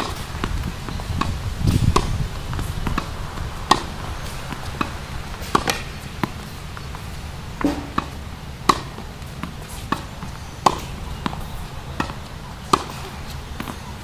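Tennis rally on a hard court: sharp pops of the racquet striking the ball about every two seconds, with quieter ball bounces and fainter hits in between. A brief low rumble near the start.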